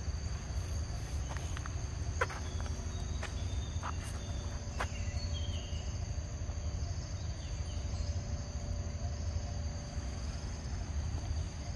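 Steady, high-pitched insect drone in the forest, with a constant low rumble beneath and a few sharp clicks in the first five seconds.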